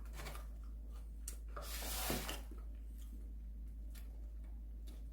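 Quiet eating sounds of a person chewing fried chicken: a few small clicks, then a short breathy, rustling noise about two seconds in.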